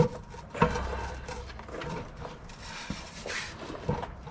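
Driveshaft slip yoke knocking and scraping against the transmission tailshaft housing as it is worked onto the output-shaft splines: a sharp metal knock, then a second about half a second later, and scattered smaller clunks and rubbing.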